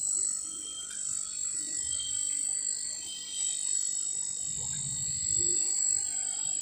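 Steady high-pitched insect chorus, a constant shrill drone, with a couple of soft low rumbles.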